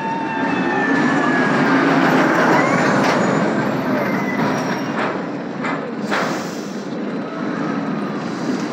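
Roller coaster car running over steel track: a steady rolling rumble that peaks about two seconds in, with a few high gliding squeals and three sharp clacks.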